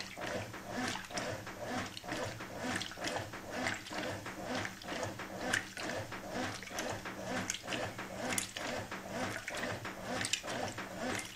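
Brastemp Clean 6 kg top-loading washing machine agitating a water-soaked double duvet: a rhythmic back-and-forth churning and sloshing over the steady hum of the motor, on the normal agitation cycle.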